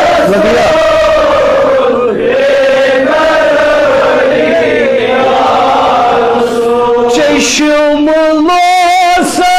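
Male voices chanting a Kashmiri naat in long held notes. About three-quarters of the way through, a single male voice takes over with a wavering, ornamented melodic line.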